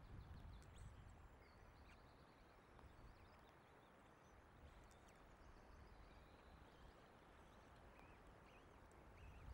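Near silence: faint wind noise on an outdoor nest-camera microphone, with low wind buffeting that eases over the first second or so, and a few faint short high chirps.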